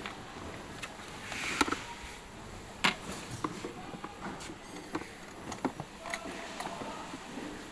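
Irregular clicks and light knocks from hands and tools working on the plastic parts of a ride-on toy UTV during disassembly, with one sharper knock about three seconds in.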